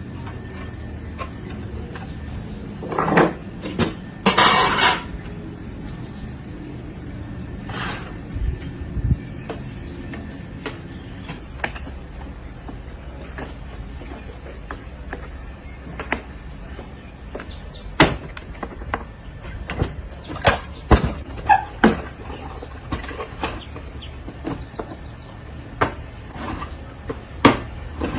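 Scattered knocks, taps and clicks from parts being handled during repair work, over a steady low hum, with a louder noisy rush about four seconds in.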